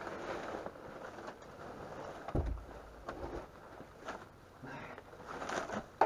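Scraping and shuffling as a water heater tank lying on its side is handled on a wet crawl-space floor, with one heavy thump about two and a half seconds in.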